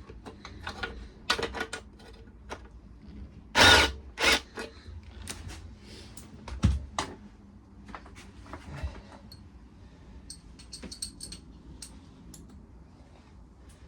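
Metal tools and lawnmower engine parts being handled: scattered clicks and clinks, two loud short rattling bursts about four seconds in, and a dull knock a few seconds later.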